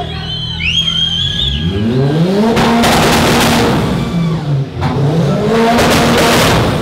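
Car engine revved hard twice, each time climbing quickly, holding near the top with a harsh, crackling exhaust, then dropping back. A short high squeal comes about a second in, before the first rev.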